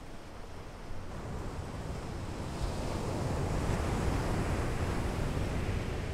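Sea waves breaking on a beach: the rush of surf swells over a few seconds, peaks about four seconds in, then eases off.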